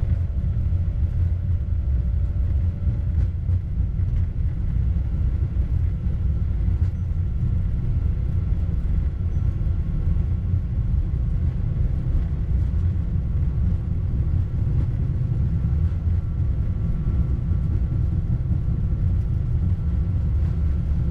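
Steady low rumble inside a Boeing 787 flight deck as the airliner rolls along the runway: engine and airframe noise, with a faint steady whine above it.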